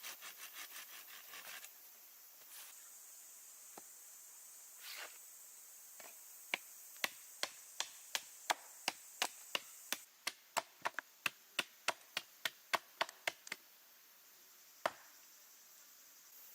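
A knife chopping food on a wooden board. Rhythmic scraping strokes fade out in the first two seconds, then after a few stray knocks comes a run of about twenty sharp chops, about three a second, with one last chop near the end.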